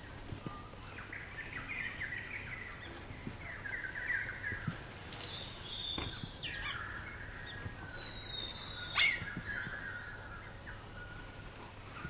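Small songbirds chirping and twittering in short repeated bursts, with one sharp tap about nine seconds in.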